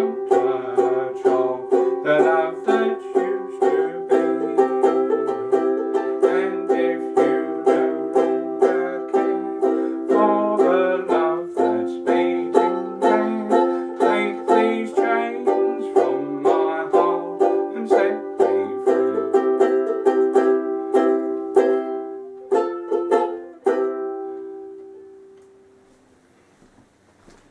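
A banjo-ukulele strummed in steady chords, about two strums a second. Near the end the playing stops on a last chord that rings out and fades.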